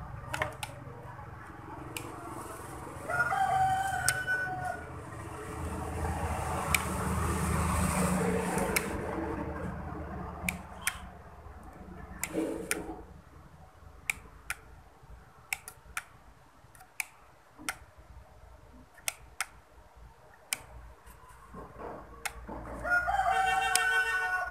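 A rooster crowing twice, a few seconds in and again near the end. Between the crows there are a few seconds of broad noise and then a run of scattered sharp clicks.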